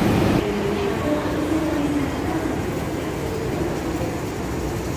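Underground metro station: an MTR train running, a steady low rumble with a faint whine.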